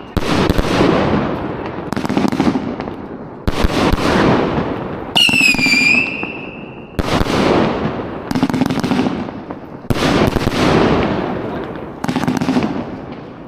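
A large multi-shot fireworks cake firing shot after shot, about every one and a half to two seconds. Each shot is a sharp bang followed by fading crackle, and one shot near the middle carries a whistle that falls in pitch.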